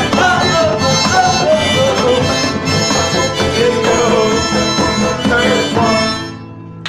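Live acoustic band playing: a harmonica carries the melody with bending notes over strummed acoustic guitar, mandolin and accordion. The song ends about six seconds in.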